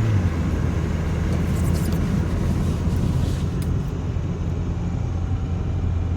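A 2000 Toyota Corolla driving along: a steady low hum of its four-cylinder engine and the road, stepping a little lower in pitch right at the start.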